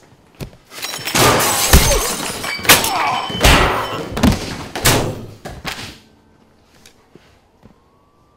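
Film fight sound effects: a rapid string of heavy punches and thumps amid crashing and scuffling, lasting about five seconds and stopping abruptly.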